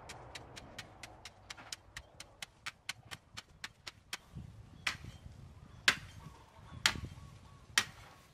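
A hoe chopping into a heap of dry soil and leaf litter about once a second, each stroke a sharp strike with a dull thud of earth, from about four seconds in. Before that, a quick, even run of light clicks.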